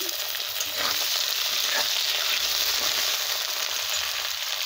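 Fish fat and innards sizzling loudly in hot oil in a kadai, a steady, high hiss just after they went into the pan.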